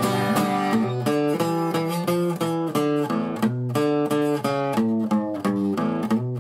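Background music: a plucked acoustic guitar playing a quick, steady run of picked notes.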